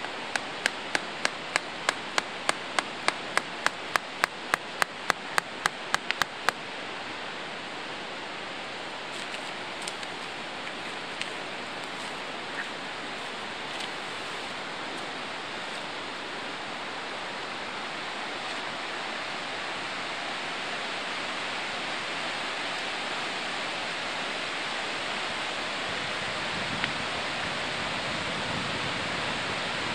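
A tent stake being driven into hard ground with a small mallet, about twenty quick, sharp strikes at roughly three a second that stop about six seconds in. Under it the steady rush of a whitewater mountain river, growing a little louder near the end.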